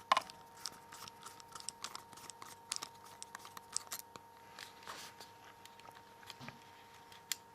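Small irregular clicks and ticks of a T5 Torx screwdriver working a tiny screw out of a Nokia N8's bottom cover, metal tip clicking against the screw and the phone's casing.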